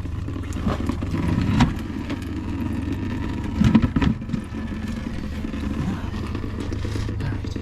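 Coolant running out of the opened drain valve on the F150's radiator and splashing into a catch pan, a steady rushing noise over a low rumble, with a few clicks and a brief louder noise a little past the middle.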